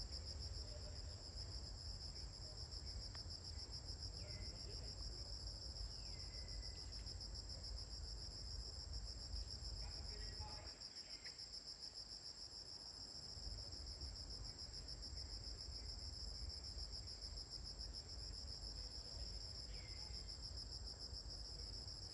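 Steady high-pitched insect chorus with a fine rapid pulse, over a low rumble, with a few short falling chirps now and then.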